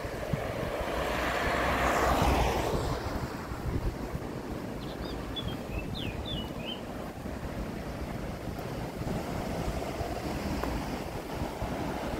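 Wind buffeting the microphone over a steady outdoor rush of noise, which swells about two seconds in and then eases. A few faint high chirps come near the middle.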